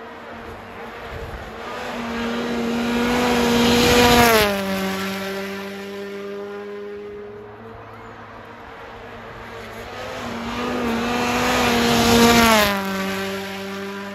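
Rally car engine at high revs passing by twice on a snow stage. Each pass grows louder, then the engine note drops sharply in pitch as it goes past, about four seconds in and again near the end.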